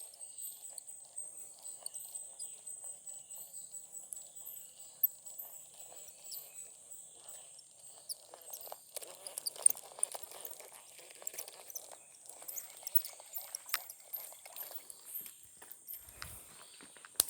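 Outdoor ambience: a steady high-pitched whine throughout, over irregular rustling and a few sharp clicks.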